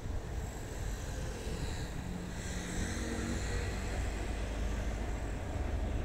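Road traffic: a vehicle passing swells and fades around the middle, over a steady low rumble.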